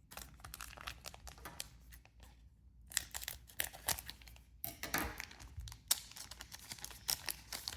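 Crinkling and rustling of a foil booster pack wrapper and trading cards being handled, with short tearing sounds in louder clusters about three, five and seven seconds in.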